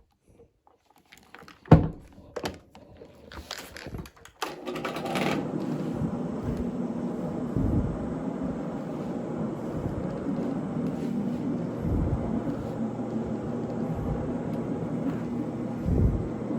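A few handling knocks, then about four seconds in a carpet-cleaning machine with a hog's-hair fiber pad starts up and runs with a steady hum, scrubbing the carpet, with an occasional low thump.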